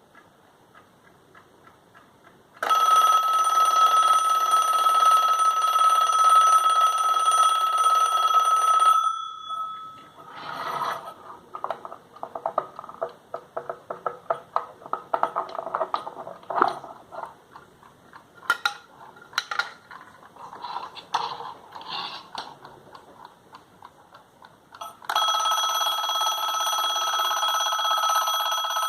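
Mechanical alarm clock ticking faintly, then its bell alarm goes off loudly and rings for about six seconds before stopping. Irregular clicks and knocks follow. The bell starts ringing again about four seconds before the end.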